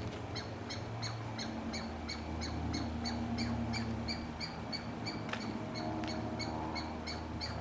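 A songbird's loud call, the same short high note repeated over and over at about three a second without a break. The recordist takes it for a distress call or a call to keep other birds away.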